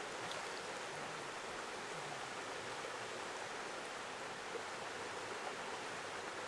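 Steady rush of river water flowing past.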